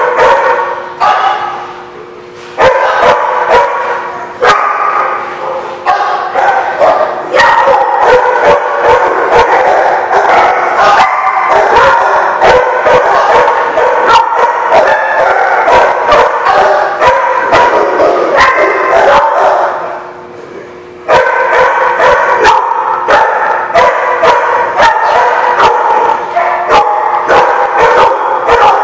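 Dogs barking and yipping over one another almost without a break, with two short lulls about two seconds in and again around twenty seconds.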